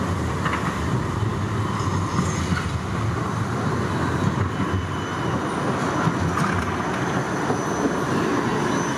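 A tram running on street rails: a steady rumble with faint high wheel squeals here and there.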